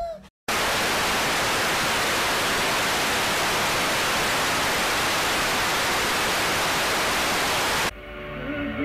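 Steady static-like hiss of white noise, switching on abruptly just after a short dropout and cutting off suddenly near the end, when music comes back in.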